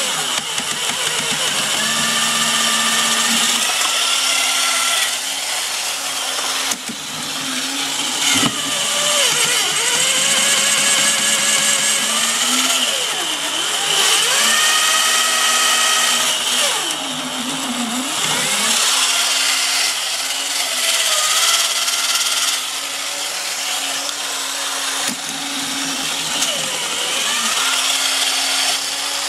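Toy robot's small electric motor and plastic gearbox whirring steadily as it runs, its pitch dropping and climbing back up several times as the motor slows and speeds up again.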